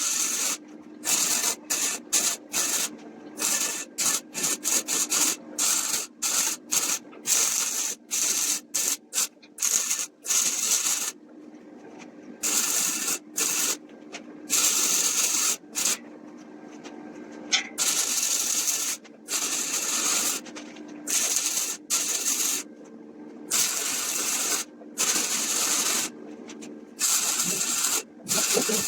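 Repeated short bursts of hissing spray, each starting and stopping abruptly and lasting from a fraction of a second to about two seconds, over a steady low hum.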